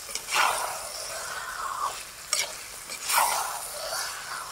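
A steel spatula stirring masala-coated chicken frying in a hot kadai, the food sizzling, in two long scraping sweeps about three seconds apart, with a few light clicks of the spatula against the pan.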